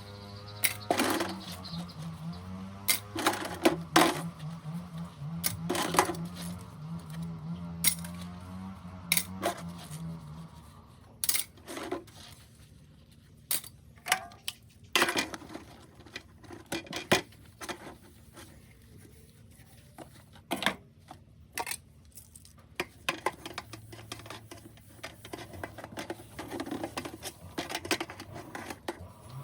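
Plates and cutlery clinking and knocking against each other in a sink as dishes are washed by hand. A tap runs with a steady hum for about the first ten seconds, then stops, leaving scattered clinks.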